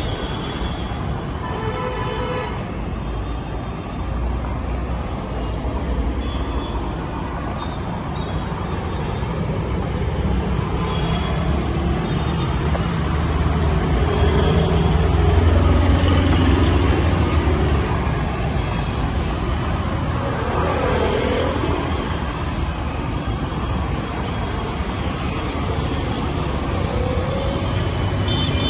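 City road traffic: motor scooters and cars driving past close by, a continuous hum of engines and tyres, with one vehicle passing louder about halfway through.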